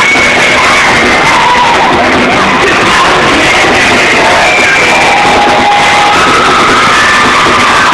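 Live rock band playing in a large hall, a singing voice over guitars, recorded so loud that it is close to overloading throughout.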